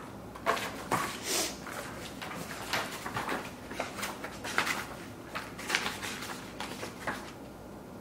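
Paper and plastic packaging rustling and crinkling in an irregular run of short crackles as a folded instruction sheet is handled and opened out.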